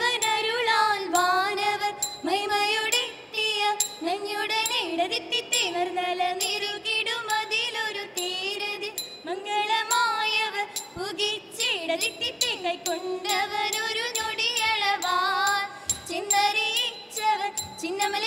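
Women's voices singing a Margam Kali song in unison, a line-by-line chant with a high voice, punctuated throughout by sharp percussive strikes keeping time.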